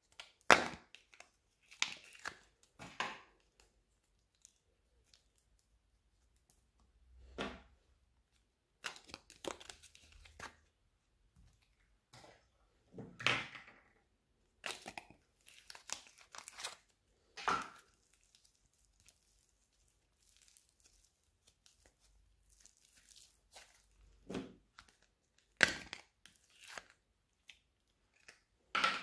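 Small plastic tubs of soft modelling clay handled and opened: irregular crackles, snaps and tearing sounds as the thin plastic flexes and the clay is peeled out, with quiet gaps between.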